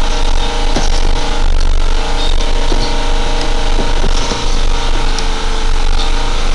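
Loud, steady engine-like drone with a hum of several steady tones, carried over an online call.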